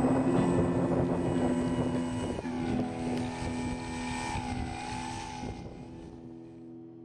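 Electric brushless motor and propeller of a large radio-controlled model plane, an NTM 50-50 580kv motor on 5S, whining as the plane taxis. From about halfway the pitch wavers up and down, and the sound fades out toward the end.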